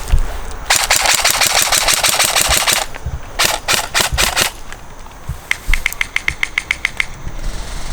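Airsoft guns firing full-auto: a dense burst of about two seconds, then a few short bursts, then a quieter, steady string of rapid shots near the end.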